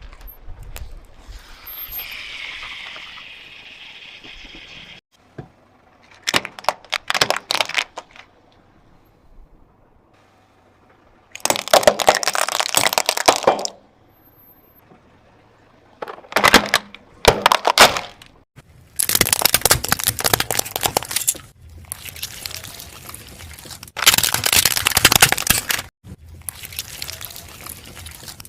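Objects being crushed under a car's tyres: repeated loud bursts of crunching and cracking, each lasting one to two seconds, with quieter gaps between.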